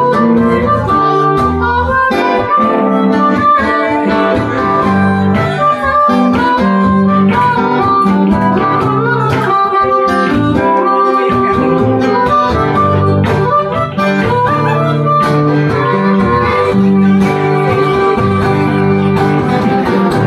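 Live blues: a harmonica played into a hand-held microphone, with held and bending notes, over guitar accompaniment.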